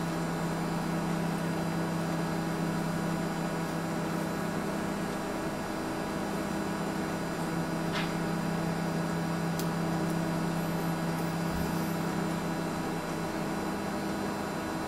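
Steady mechanical hum, a constant low drone with a few evenly spaced overtones, with two faint light clicks about halfway through as small parts of a circuit board are handled.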